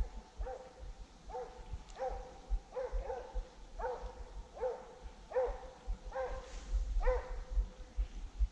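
Hunting hound barking faintly and steadily, about a dozen even barks spaced roughly two-thirds of a second apart: the chase barking of a hound sent after a wild boar.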